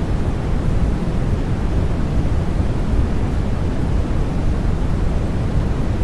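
Steady white noise for baby sleep, a deep, even rush with most of its weight in the low end and no change in level or character.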